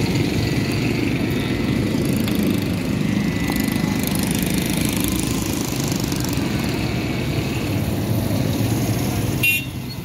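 A steady mechanical rumble like a running motor. Near the end a short sharp sound is followed by a drop in level.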